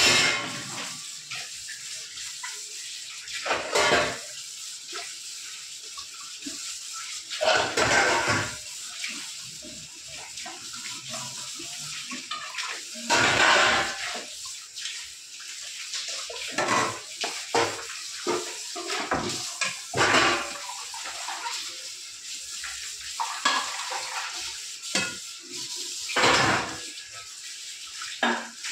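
Tap water running steadily into a kitchen sink while dishes are washed by hand, with bursts of clinking and clattering as pots, cups and utensils are handled and set down every few seconds.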